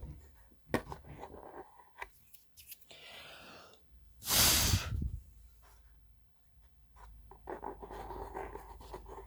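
Dust being cleaned off a speaker cone: light rubbing and scraping, with a short, loud rush of air about four seconds in.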